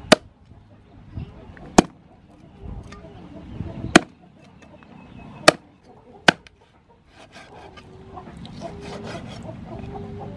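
A cleaver chopping raw pork on a thick wooden chopping block: five sharp chops a second or two apart, then a run of quicker, lighter knife taps and scrapes in the last few seconds.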